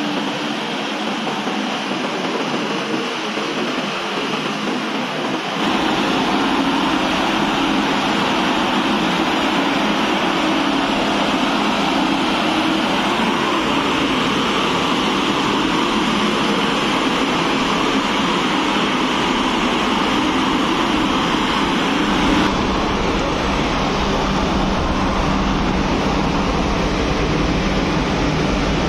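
Steady rushing and bubbling of live steam being blown into a dye bath in an open steel dyeing vat, the liquor churning and frothing. The noise grows fuller and deeper about six seconds in, and changes again a little after twenty seconds.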